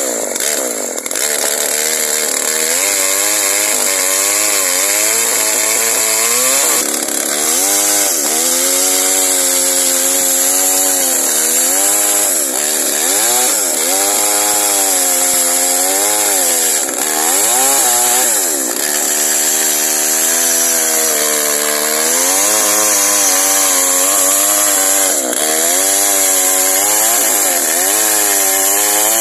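Two-stroke chainsaw running at high throttle while ripping lengthwise along a log, its engine pitch sagging under the load of the cut every few seconds and climbing back again.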